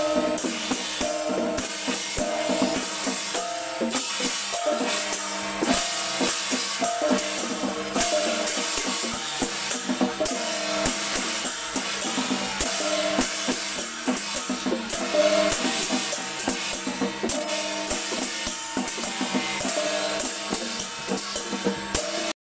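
Music with a busy drum beat under a melody of short repeated notes; it cuts off abruptly just before the end.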